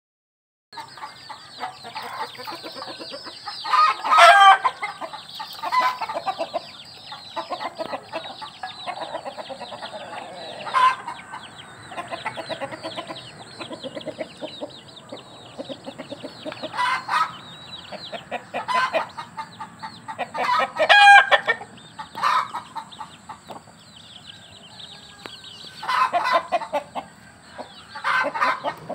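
A flock of free-range chickens clucking and calling continuously, with louder calls from single birds standing out every few seconds, the loudest about four seconds in and again about twenty-one seconds in.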